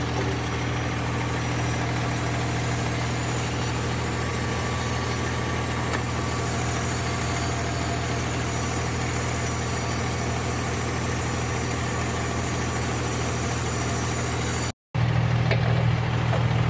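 Large rollback tow truck's engine idling steadily with an even low hum. It drops out for a moment near the end, then comes back a little louder.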